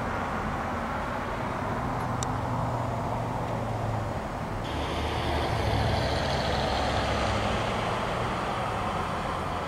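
A motor vehicle's engine running steadily with road noise, a low hum under an even rushing sound.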